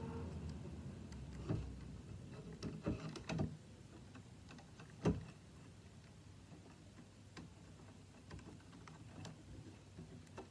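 Light clicks and taps of plastic three-wire sensor connectors and cables being handled and pushed into the ports of a VEX V5 robot brain, a handful of them, the loudest about five seconds in.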